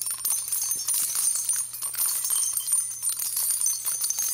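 Continuous jingling of small bells, a dense shimmer of tiny metallic strikes, used as a section-transition sound, with a faint steady hum underneath.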